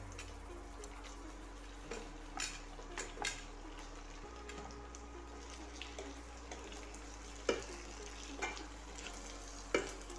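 Chicken and liver pieces frying on a bed of vegetables in a nonstick pan, with a steady sizzle, while a metal spatula stirs them and knocks against the pan several times, the loudest knocks near the end.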